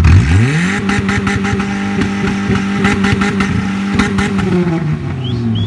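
Renault Mégane four-cylinder engine revved hard from idle and held at high revs for about four seconds, crackling as it cuts against the rev limiter, then dropped back to idle near the end.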